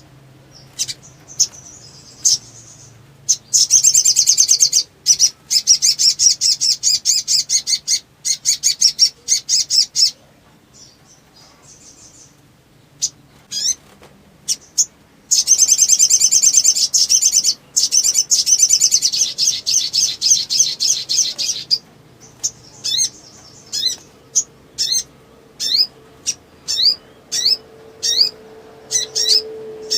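Little spiderhunter (sogok ontong) in agitated full song: two long, fast, high trills of several seconds each, with short chirps between them, then a run of quick rising notes about one a second near the end.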